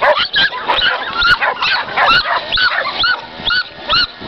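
A dog yelping in a rapid string of short, high-pitched barks, about two a second, each rising and falling in pitch.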